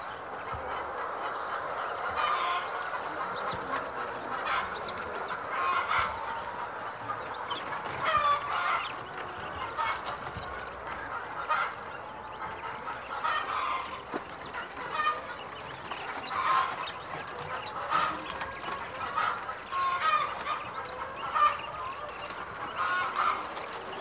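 A flock of caged farm quail calling: short calls every second or two over a constant dense chatter of many birds.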